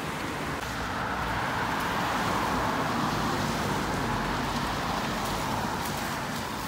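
Traffic on a wet road: a car passing with its tyres hissing on the wet asphalt, swelling a second or two in and fading away, over a steady traffic hum.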